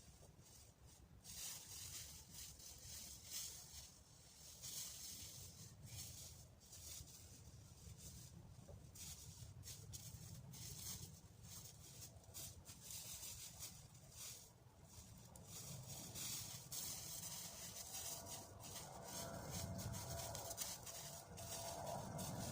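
Dry autumn leaves rustling in irregular bursts, over a low wind rumble.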